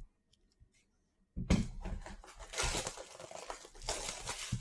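A sealed trading card box being opened: packaging crinkling and tearing, starting about a second and a half in after a short silence, with a knock as it begins.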